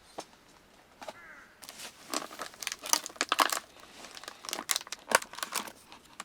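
A run of irregular crinkling and crackling, like something being crumpled or handled, lasting several seconds.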